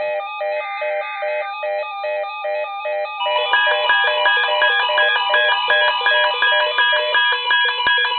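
Several NOAA weather radio receivers sounding their electronic alert beeps together for a tornado watch: layered, rapidly pulsing tones about three a second, growing fuller about three seconds in as more tones join.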